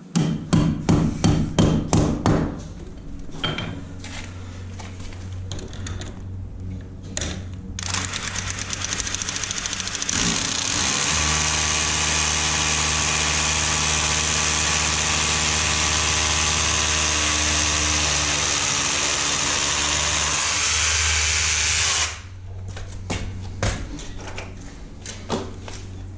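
A hammer strikes about eight quick, loud blows at a mounting point of a plastic ventilation plenum box. Then, from about eight seconds in, a cordless hammer drill bores into the concrete ceiling, running steadily for about twelve seconds before it stops. A few light knocks follow as wall plugs are fitted.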